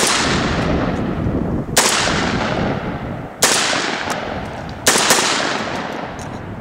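Four shots from a Lion X6 semi-automatic 12-gauge shotgun fired in steady succession about one and a half seconds apart, each ringing out with a long fading echo. The gun cycles every round of a mix of 15–25-year-old shells, birdshot, buckshot, 2 3/4-inch and 3-inch magnum, without a jam.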